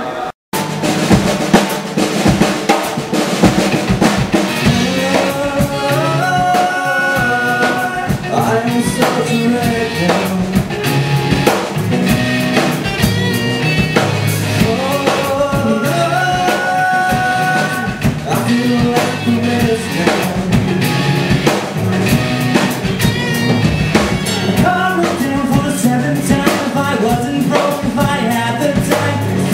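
Live rock band playing loudly: electric guitars, bass guitar and a drum kit with a steady beat, and a man singing. It cuts in abruptly after a momentary dropout just after the start.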